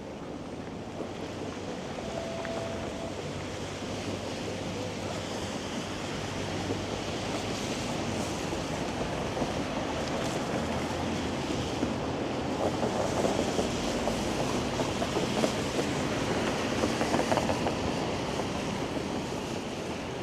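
Steady rush of city road traffic, cars passing on a busy street, slowly growing louder.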